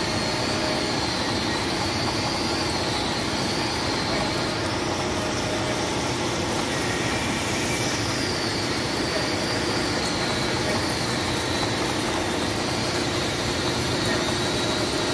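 Manual milling machine running under cut, its cutter milling sprocket teeth into metal blanks held on a dividing head: a steady machining drone with a high tone that wavers slowly up and down.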